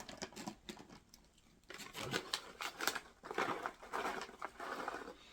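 Irregular crunching and crinkling from trail mix with pretzels and nuts and its pouch, with a brief pause about a second in.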